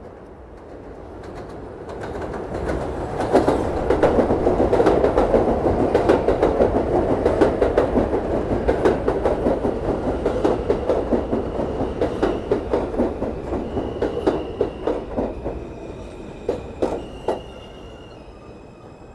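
New York City subway train, an R160A-1, pulling in past the platform of an elevated line, its wheels clacking rhythmically over the rail joints. It builds up over the first few seconds and is loudest through the middle. From about halfway, thin high squealing tones come in, and the train then fades away.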